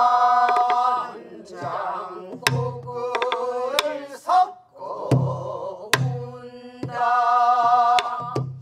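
Pansori singing by a teacher and class, the voices holding long notes with a wide, wavering vibrato, accompanied by sparse buk barrel-drum strokes: low palm thumps on the drumhead and sharp stick clicks.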